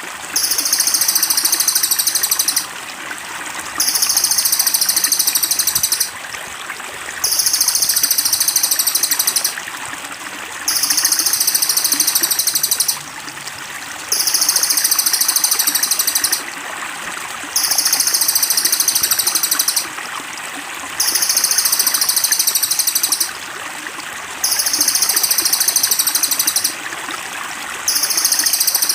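A bird's very high-pitched, rapid buzzing trill, each lasting about two seconds and repeated identically every three seconds or so, as in a looped song recording of a cililin. Trickling, running stream water hisses steadily underneath.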